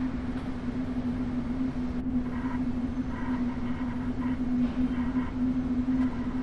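Steady low hum of a running elevator over a rumbling noise bed, one held low tone throughout. Faint higher tones come and go from about two seconds in.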